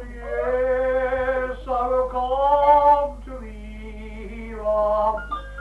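A woman singing three long held notes with a slight waver, on an old home tape recording with a steady low hum underneath.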